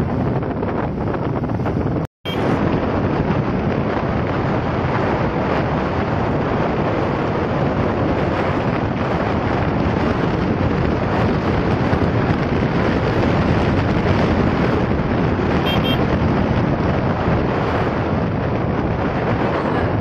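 Heavy wind rushing over the microphone of a camera riding in a moving vehicle on the road, a steady loud roar of wind and road noise. The sound cuts out completely for a moment about two seconds in.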